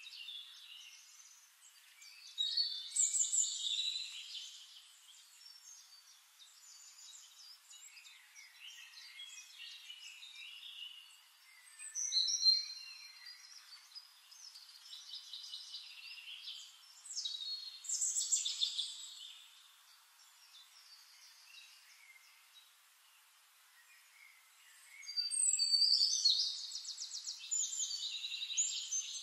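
Birds singing in scattered bursts of chirps and trills, with a fast, loud trill near the end.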